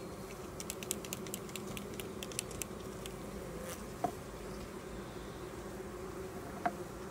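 Honeybees buzzing over an open hive frame, a steady low hum. A quick run of light clicks sounds between about one and three seconds in.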